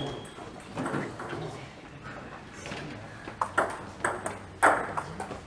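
Table tennis balls clicking sharply off bats and tables, at uneven intervals, more often in the second half.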